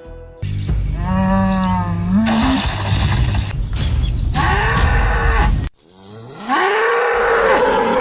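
African (Cape) buffalo lowing: three long, loud moo-like calls, the second one cut off suddenly.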